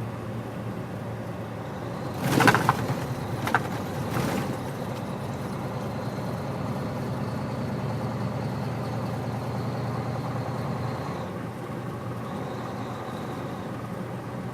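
Steady drone of a semi-truck's engine and road noise heard from inside the cab. Three short, sharp clunks come about two to four seconds in, the first the loudest.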